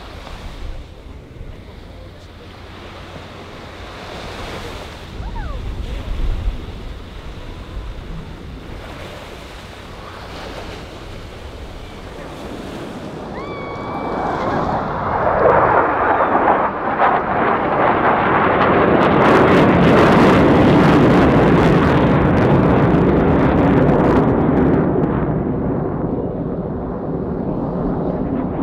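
Jet roar from the Blue Angels' F/A-18 Super Hornets flying in formation. It builds from about halfway in and is loudest over the last third. Before it, wind buffets the microphone over the rush of surf.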